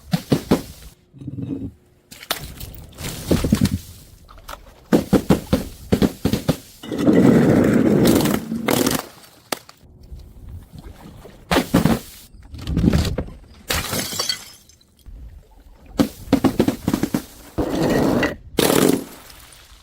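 Things being smashed and crushed: clusters of sharp breaking and cracking impacts throughout, with a longer, louder crunching stretch about seven seconds in.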